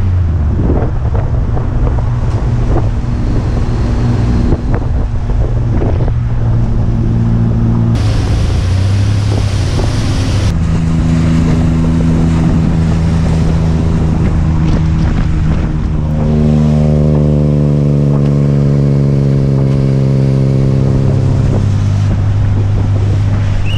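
A tuk-tuk's small engine running under way, heard from the passenger seat, with a steady buzzing note that changes pitch several times as it speeds up and eases off.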